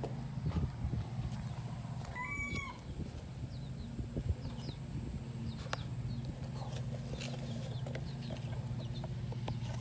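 Yard chickens clucking and calling, with one longer held call about two seconds in, over a steady low hum.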